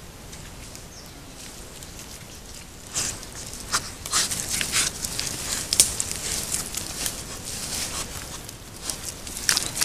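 Wild boar piglets rooting and stepping in leaf litter and loose soil close by, making irregular crackling and rustling that starts about three seconds in and comes in uneven bursts.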